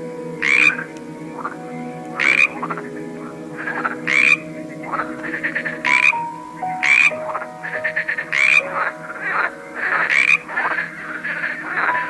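Pond frogs croaking: loud calls about every one to two seconds, with quick rattling runs of pulses in the second half.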